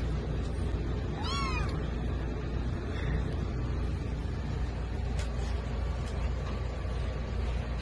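A kitten mews once about a second in: a short, high call that rises and falls. A steady low hum runs underneath.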